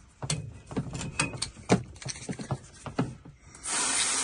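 A string of sharp knocks and clicks, then, about three and a half seconds in, a hose starts spraying water into the bilge with a steady loud hiss.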